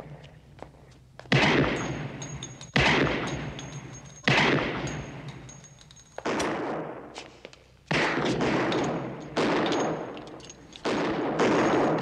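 Handgun shots fired in slow succession on an indoor shooting range, about seven shots roughly one and a half seconds apart. Each shot starts sharply and dies away in a long echo.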